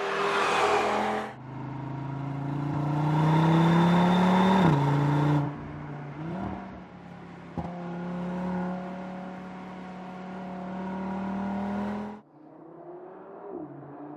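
Audi RS 3's 2.5 TFSI turbocharged five-cylinder engine accelerating, its pitch rising and then dropping at an upshift about five seconds in before it pulls on steadily, with one sharp crack partway through. It opens with about a second of loud rushing noise. Near the end the sound cuts to a quieter engine note with a brief blip of revs.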